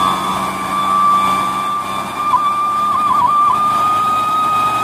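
Loaded dump truck's engine running under load in mud, with a steady high-pitched whine over the engine noise; the whine dips briefly a few times a little past the middle.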